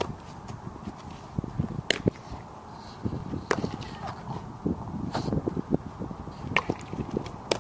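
Infield softball practice: four sharp cracks of the ball off the bat and into the glove, with shoes scuffing and crunching on the dirt infield.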